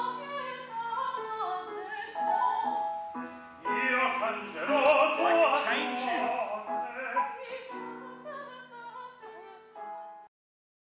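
Opera music: singing voices with a wavering vibrato over instrumental accompaniment, cutting off abruptly near the end.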